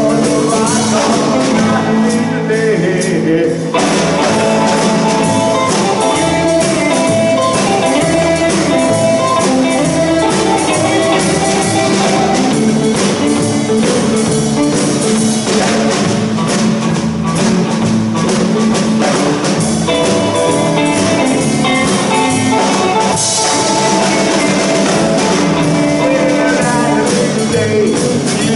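A rockabilly trio playing live: a hollow-body electric guitar, an upright double bass and a Gretsch drum kit, with a male voice singing in parts.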